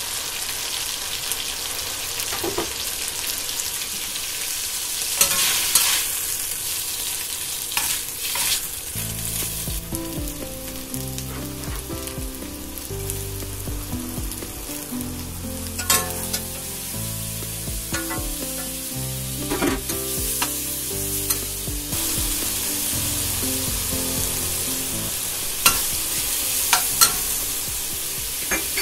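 Chicken pieces and then mushrooms sizzling in a hot stainless steel wok as they are stir-fried, with a metal spatula scraping and knocking against the pan now and then. Soft background music comes in about nine seconds in.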